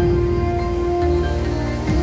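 Background music with long held tones, and a soft percussive hit near the end.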